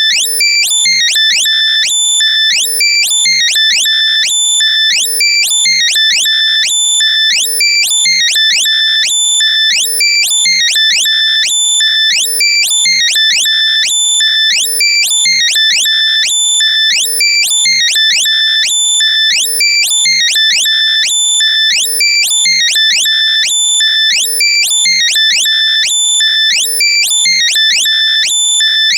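Loud, compressed synthesized alert sound made to be played through lost earbuds to find them: high-pitched electronic beeps and quick rising chirps repeating in a steady loop.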